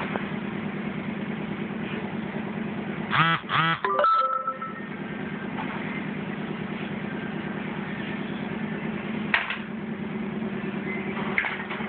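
A steady low machine hum. About three seconds in, a short run of brief sounds that bend in pitch, and a single sharp click near the end.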